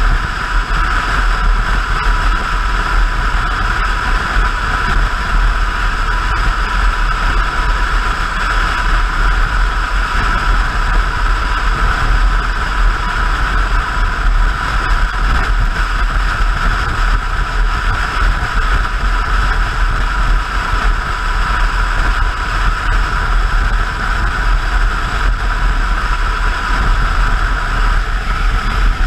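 Motorcycle cruising at highway speed: steady wind rush over the microphone with the engine running evenly underneath.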